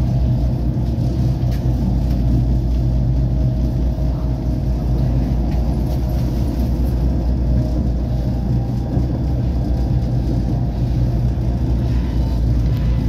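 Tram running along its track at a steady speed: a continuous low rumble of wheels and running gear on the rails, with a few faint steady whining tones above it.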